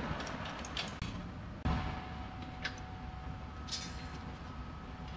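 Quiet workshop hum with a few light clicks and knocks from steel parts being handled on a go-kart frame, and a brief hiss near the end.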